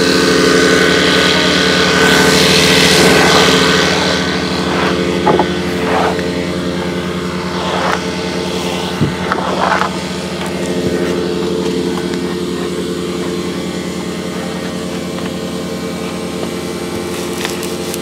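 A motor-driven machine runs steadily, a hum of several fixed tones. A rough-sawn live-edge wood slab is carried over and set against the wall, giving a few knocks and scrapes partway through.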